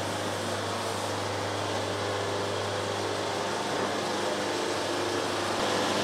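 Band sawmill running with a steady mechanical hum and an even whir that holds without change.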